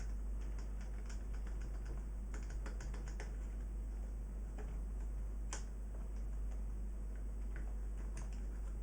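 Light plastic clicks and taps as buttons are pushed and worked into the holes of a Pioneer XDJ-RX's top panel. The clicks are scattered and irregular, with a quick run of them a couple of seconds in and one sharper click about halfway, over a steady low hum.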